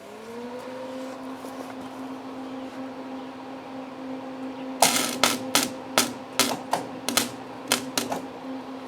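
Old Lincoln flux-core wire-feed welder humming steadily, its pitch rising briefly at the start and then holding. About five seconds in comes a run of about ten short, crackling arc bursts: stuttering tack welds, from a welder the owner says still has trouble feeding wire.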